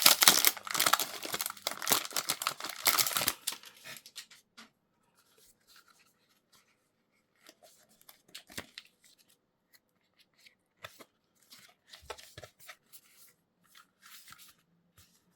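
Packaging being torn open and crinkled for about three and a half seconds, then faint scattered clicks and rustles as a small item is handled.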